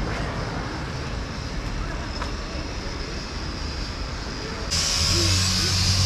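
City street ambience: steady noise of traffic on a nearby road. About four and a half seconds in it abruptly becomes louder and fuller, with more low hum and hiss.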